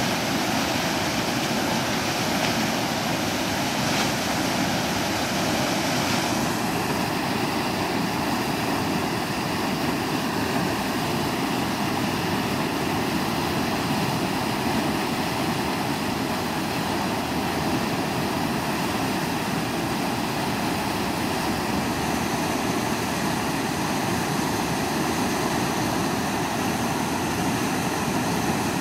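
Steady rushing of a river's whitewater pouring over a play hole at a high flow of about 2500 cubic feet per second, an even, unbroken noise.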